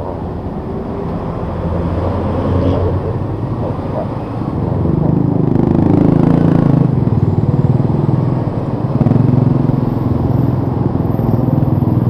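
2015 Kawasaki Ninja 250's parallel-twin engine running at low speed in slow traffic; about five seconds in the revs rise and it gets louder, then holds steady.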